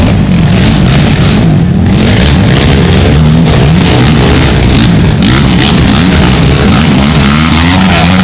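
Several racing ATV engines revving up and down, overlapping and loud, their pitch rising and falling again and again as the quads accelerate and shift.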